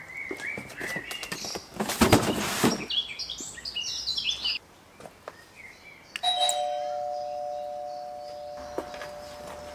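Bird chirps, a short loud noisy burst about two seconds in, then a bell-like chime about six seconds in: two steady tones struck together, ringing and slowly fading.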